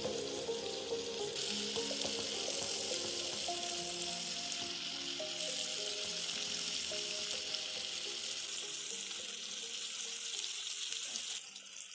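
Onions, tomatoes and screwpine leaves sizzling in hot oil in a clay pot. The sizzle grows stronger a little over a second in and cuts off just before the end.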